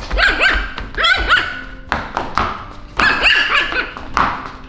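Puppy barking back in high-pitched yaps, in two bouts of several barks each: one just after the start and another about three seconds in.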